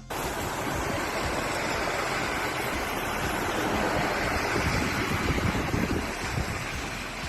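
Strong blizzard wind blowing over the microphone, a steady loud rushing that eases slightly near the end.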